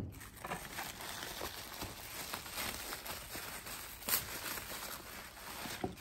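Crinkling and rustling of a clear plastic bag as it is pulled off a cardboard box, with many small crackles and a few sharper snaps. A single thump at the very start.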